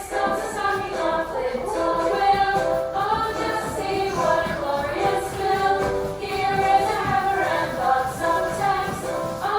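A group of young children singing a song together, with musical backing.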